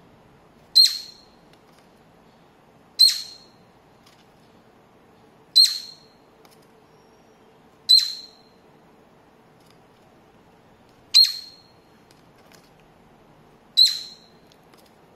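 Cockatiel giving six short, sharp chirps, one every two to three seconds.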